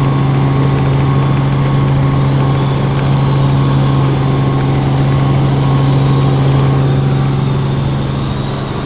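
Helicopter running steadily with a strong, even low drone, easing slightly near the end.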